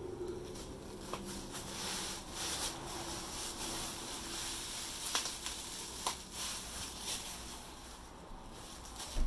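Soft rustling and a few light clicks from a sheet of corn-starch packing insulation being handled, over a faint low hum that fades out in the first few seconds.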